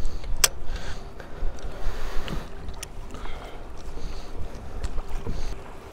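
Wind rumbling on the microphone and water sloshing against a kayak hull, with a couple of sharp clicks.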